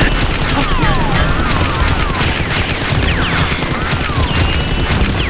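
Dubbed-in gunfire sound effects: a dense, rapid, continuous volley of shots, with several falling whistles overlapping them.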